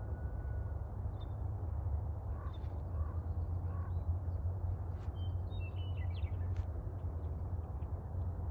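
Steady low rumble of wind on the microphone, with faint high bird chirps scattered through the middle few seconds and a few soft clicks.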